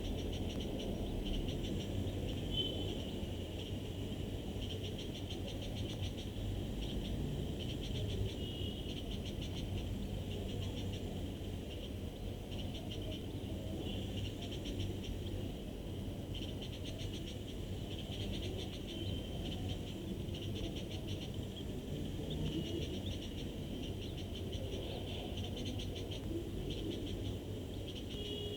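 Animal chorus of rapid pulsed trilling calls, in short bursts repeating every second or two, over a steady low background rumble.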